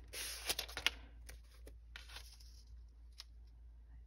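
Paper and plastic packaging being handled: a brief crinkling rustle in the first second, then scattered light rustles and ticks as a packaged paper craft book is turned and opened.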